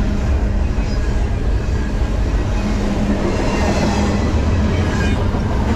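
Freight train rolling past: a steady, loud rumble with a low hum running through it.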